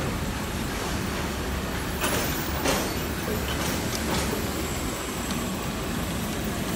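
Steady roar of machinery on an airport apron, with a few short hissing surges between about two and four seconds in.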